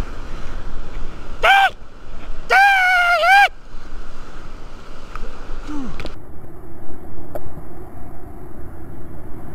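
Whitewater rushing and churning around a cataraft running a rapid, a steady loud wash. About a second and a half in there is a short high-pitched cry, and a second, longer one follows about a second later.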